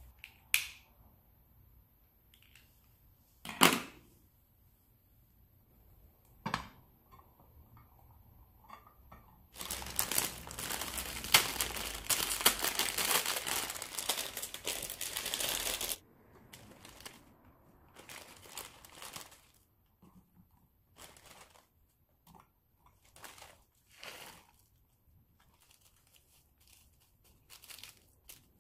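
A few sharp clicks, then about six seconds of water pouring into a black pot. After that comes the intermittent crinkling and tearing of an instant ramen packet being opened and the dry noodle block put into the pot.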